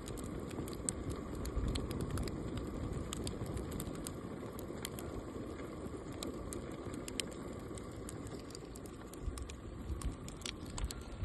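Wood fire crackling in an outdoor wood-fired stove: irregular sharp pops and ticks over a steady low noise.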